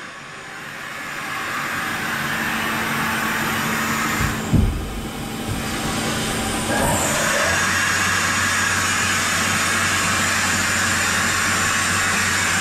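Kia H63 horizontal machining centre running, a steady mechanical whirr, while its pallet table turns. There is a single low clunk about four and a half seconds in, and a steady hum sets in a few seconds later.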